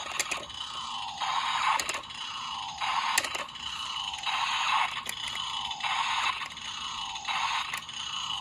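Electronic sound effect from the Magnum Shooter 40X toy gun's speaker: a looping pattern of falling tones, about one every two-thirds of a second, with a few sharp clicks among them.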